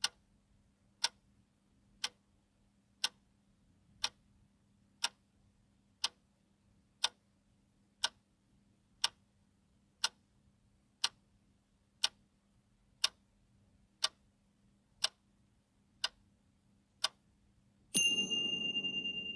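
Countdown clock-ticking sound effect, one sharp tick a second. About eighteen seconds in, as the count reaches zero, it ends in a bright ringing chime over a low thud.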